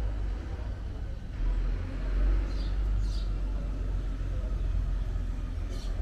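Outdoor village-square ambience: a steady low rumble, faint background voices, and a few short high chirps about midway and near the end.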